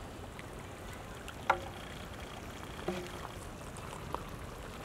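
Large pot of fish curry simmering with a steady liquid bubbling hiss, broken by two short, sharp clinks, the louder about a second and a half in and a second one about a second and a half later.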